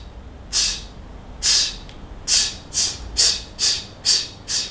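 A man hissing 'sss' through his teeth in short, sharp hisses as a diaphragm breathing drill for singing. There are two hisses about a second apart, then six quicker ones at twice the pace, in time with a steady beat.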